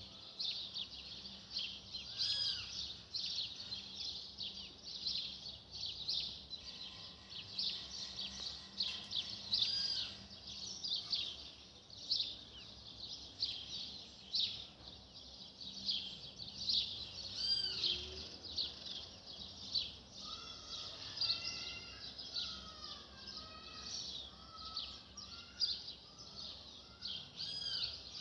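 A chorus of many birds chirping and singing at once, a dense, unbroken stream of high notes. A lower series of notes from another bird joins about twenty seconds in.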